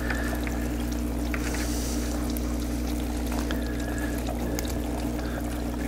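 Steady electric hum with water bubbling and trickling: air pumps aerating hydroponic buckets, with a few faint ticks.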